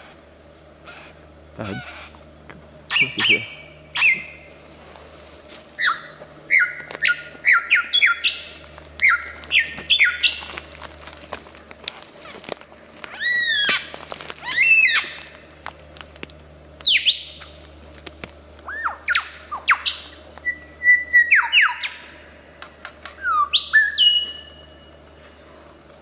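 Superb lyrebird singing a rapid, varied run of mimicked bird calls: clear whistles, sweeping notes that slide down in pitch, and harsher squawk-like calls, one after another with short gaps.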